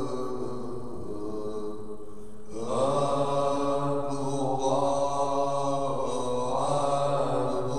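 Liturgical chant sung in long held notes, accompanying the Maronite Easter resurrection procession around the altar. A louder phrase starts about two and a half seconds in.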